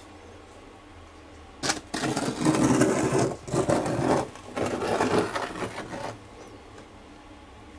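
Steel trowel scraping and spreading wet self-levelling compound across a floor, in three rough strokes over about four seconds, starting about two seconds in.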